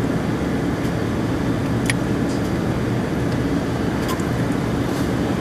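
Steady low hum of a car's engine idling, heard from inside the cabin.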